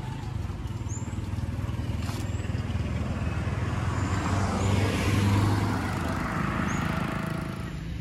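Street traffic: a motor vehicle's engine hums steadily, growing louder as it passes about five seconds in, then fading.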